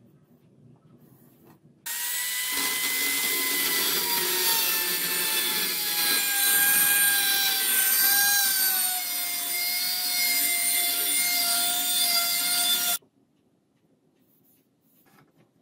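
Small handheld rotary tool with a grinding-stone bit grinding the edge of a leaf-spring steel blade: a loud, hissy grind over a high motor whine that slowly drops in pitch. It starts abruptly about two seconds in and cuts off abruptly a couple of seconds before the end.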